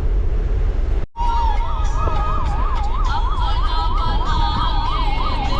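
Steady low vehicle rumble. After a cut about a second in, an electronic siren starts warbling quickly up and down, about three sweeps a second, over the rumble.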